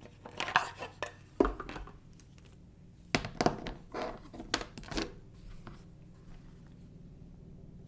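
Hands handling an Apple TV box and its packaging: short rustles, crinkles and taps in two bursts, with a sharp knock about one and a half seconds in.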